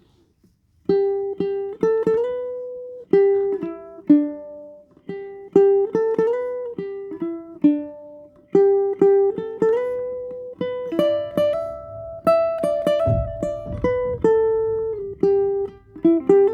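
Tenor ukulele played fingerstyle: a melody of plucked notes and chords, each ringing and dying away, beginning about a second in. A brief low bump sounds under the playing near the end.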